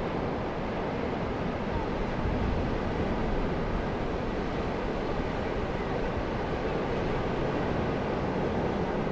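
Ocean surf breaking in a steady rumble, with wind buffeting the microphone.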